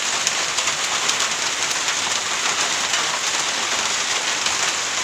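Heavy monsoon rain falling steadily: a dense, even patter of drops.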